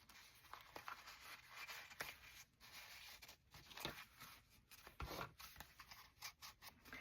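Near silence with faint scattered rustles and small clicks as paper craft materials are handled.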